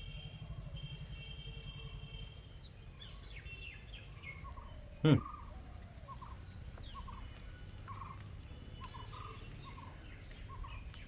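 Small birds chirping and calling, short scattered notes throughout. One loud, brief call about five seconds in drops steeply in pitch.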